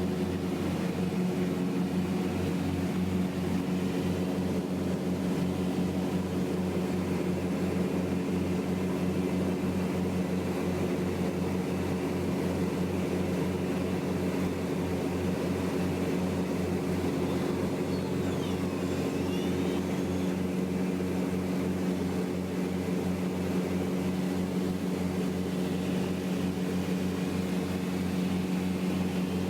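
Twin piston engines and propellers of a Beechcraft Travel Air running at takeoff power through the takeoff and initial climb: a steady, even drone that holds one pitch.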